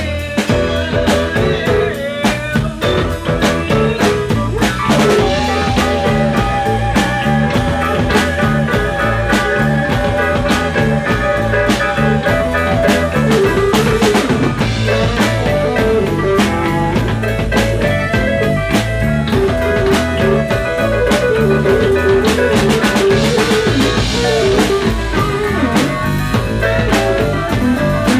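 Live blues-rock band playing an instrumental passage: drum kit keeping a steady beat under bass, electric guitar and keyboard.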